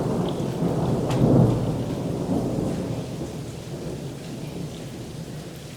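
Thunder rumbling after a large cloud-to-ground lightning bolt, loudest about a second in and then fading away, with light rain falling.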